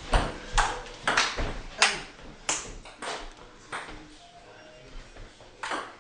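Table tennis ball clicking back and forth between the paddles and the tabletop in a rally, about two sharp hits a second. There is a brief lull about four seconds in before the hits resume.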